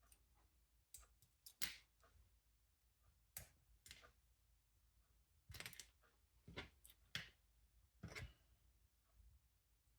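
Faint, scattered clicks and short scrapes, about eight of them at uneven intervals, from small parts and hand tools being handled; the loudest comes about one and a half seconds in.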